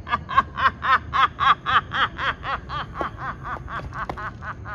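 A woman laughing in a long run of short 'ha' beats, about four a second, loudest at first and then slowly weakening.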